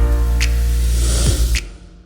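Background music with sustained chords and a regular beat, dropping away in level near the end.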